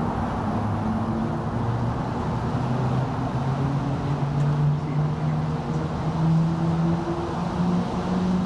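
Portland Aerial Tram cabin in motion: a steady rushing ride noise, with a whine that slowly rises in pitch.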